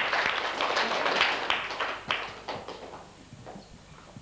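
Audience applauding with hand claps in a small room, thinning out and dying away about three seconds in.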